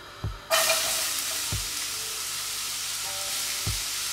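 Sliced white onions hitting a hot, lightly oiled frying pan: a sizzle starts suddenly about half a second in and keeps going steadily as the onions begin to fry. A few dull low thumps come through it.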